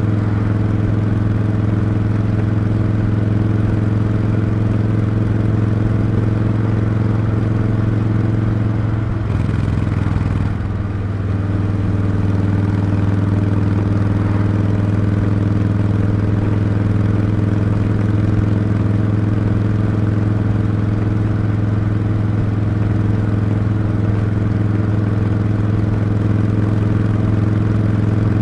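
Harley-Davidson V-twin engine and exhaust running steadily under way, an even low note. About nine seconds in the note briefly drops and dips in level, then settles back to the same steady pitch.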